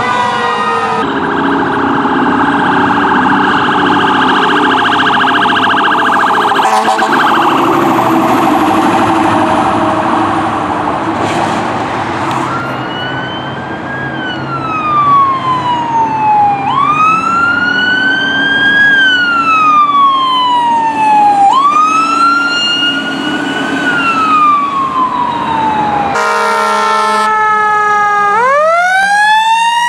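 Fire trucks responding with sirens and horns. First come long steady blasts of several tones over a running engine. Then a siren wails up and down in slow cycles of about five seconds, and near the end a siren winds up sharply from a low pitch.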